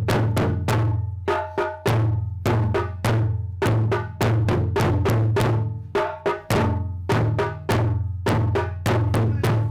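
Japanese taiko drums (barrel-shaped nagado-daiko) struck with wooden bachi sticks by two players in a practised rhythm. Loud, deep strokes come a few a second, with short gaps between phrases.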